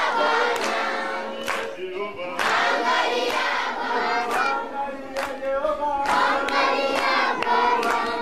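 Choir of many voices singing, with sharp percussive hits every second or so.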